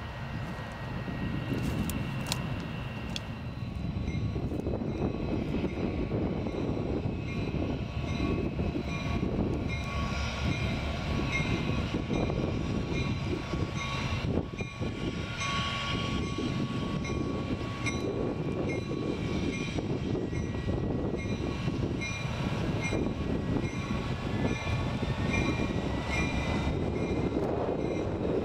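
Union Pacific diesel locomotive running light at a crawl, its engine a steady low rumble that grows a little louder from about four seconds in. Its bell rings in an even rhythm.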